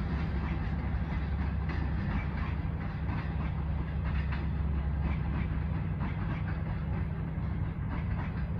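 Passenger train running, its wheels clicking over rail joints above a steady low rumble.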